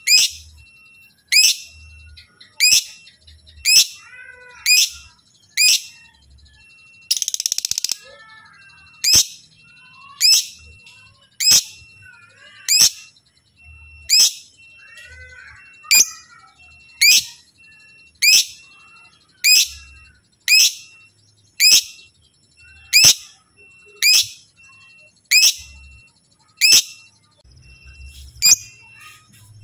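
Lovebird calling: loud, sharp, high shrill calls repeated about once a second, with softer chattering between them. About seven seconds in, a rasping, noisy burst lasts about a second.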